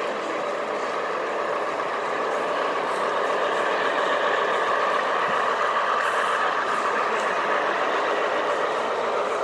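Model Union Pacific streamlined passenger train running past on layout track: a steady hum and rumble of the locomotive and cars rolling on the rails, growing a little louder over the first few seconds as the train comes close.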